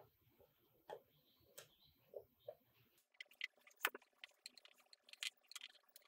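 Faint, scattered ticks and crackles of a painted polycarbonate RC car body shell being handled while its window masks are picked off with a hobby knife. The clicks come sparsely at first, then crowd together and grow louder about halfway through, the loudest a sharp click around four seconds in.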